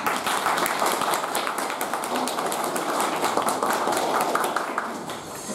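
Audience applause, many hands clapping; it starts suddenly and eases off near the end.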